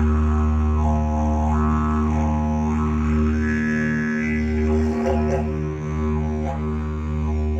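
A deep, steady musical drone whose upper overtones sweep up and down in vowel-like arcs, over a steady held higher tone. The drone dips briefly a few times near the middle.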